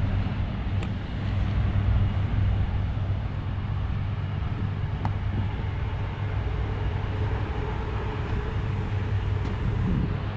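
Steady low vehicle rumble with a constant hum.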